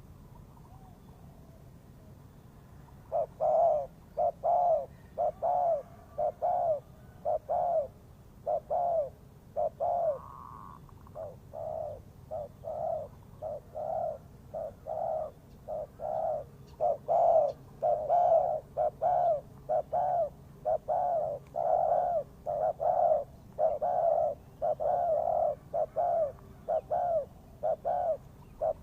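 Spotted dove cooing: a long run of short repeated coos that starts about three seconds in, at roughly two notes a second.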